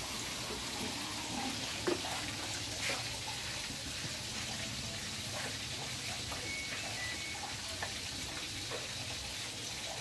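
Samsung Activ Dual Wash top-loading washing machine running on a test cycle after repair, with a steady rush of water in the tub. A couple of light clicks come about two and three seconds in.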